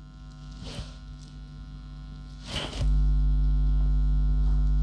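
Electrical mains hum: a steady low buzz with a few faint higher tones, which suddenly gets much louder about three seconds in. Two faint, brief breath-like noises come before the jump.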